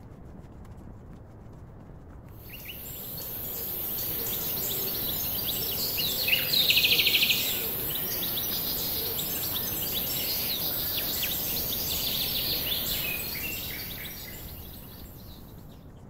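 Forest birds chirping and calling over a steady high-pitched insect hiss. The sound swells in about two seconds in and fades out near the end, with one loud rapid trill about six seconds in.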